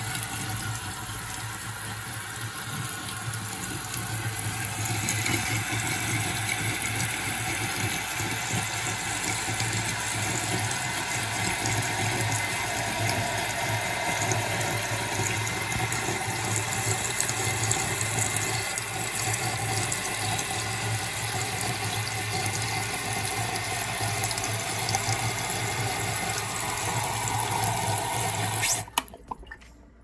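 Newly installed toilet fill valve refilling the tank: a steady rush and hiss of water pouring in, with a low hum beneath, that cuts off suddenly near the end.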